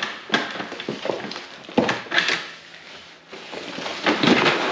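Cardboard box rustling and scraping while packed workbench parts are pulled out and shifted inside it, with a sharp knock a little under two seconds in.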